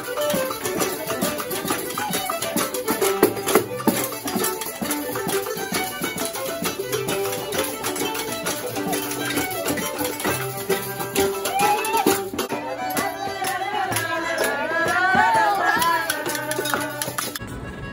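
Fiddles playing a lively traditional folk tune with rattling shaker percussion. The music breaks off abruptly just before the end.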